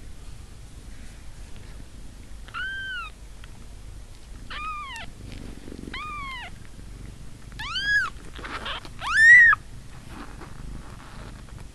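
Two-day-old kittens mewing hungrily: five thin, high cries, each rising then falling in pitch, the last the loudest.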